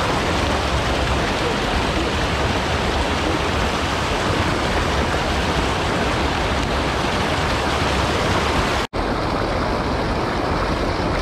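Water rushing steadily over a low-head dam's concrete spillway. The sound drops out for an instant about nine seconds in, then carries on a little duller.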